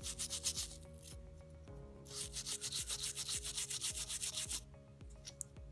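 Toothbrush scrubbing a phone's circuit board around a freshly soldered headphone jack, cleaning the solder joints, in quick back-and-forth strokes. The strokes come in two spells with a brief break about two seconds in, and stop about a second before the end.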